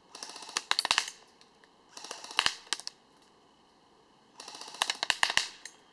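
ICS SIG 552 Sportline airsoft electric gun (AEG) shooting three short bursts of rapid clicks, each about a second long, at a paper target.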